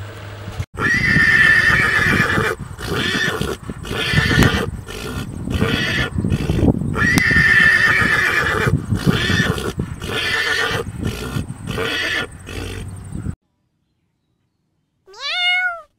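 A horse whinnying: two long, high whinnies about six seconds apart, with shorter neighing calls between them. After a short silence, near the end, a domestic cat meows once, rising then falling in pitch.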